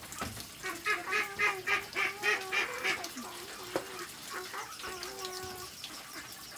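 Domestic waterfowl calling in a quick run of loud, repeated honking calls for about two seconds, then softer, drawn-out calls.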